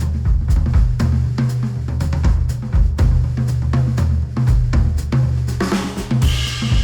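Drum-driven music with a punchy kick and snare over a heavy bass line, played back through Sennheiser headphones and picked up by microphones at the earcups. A cymbal swell builds near the end.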